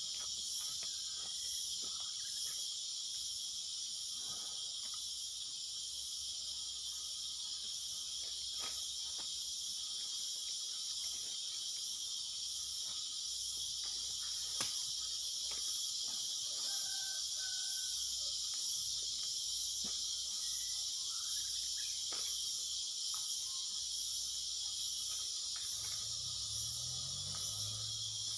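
A steady, high-pitched buzzing chorus of insects in dry forest, with scattered clicks and crunches of someone moving over dry leaves and stones and one sharp click about halfway. A low hum comes in near the end.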